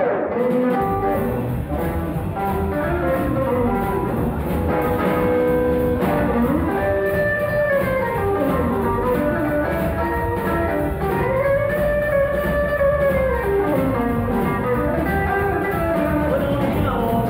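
Live blues trio playing an instrumental passage: a hollow-body archtop electric guitar leads with bent notes over upright double bass and drums.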